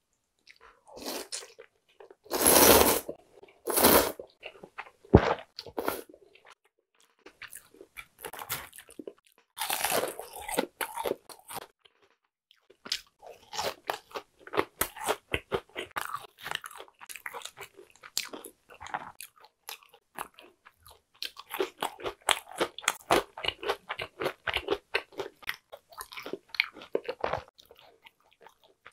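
Close-miked eating: a few loud slurps of buckwheat soba noodles in the first seconds, then a long run of rapid, crunchy chewing.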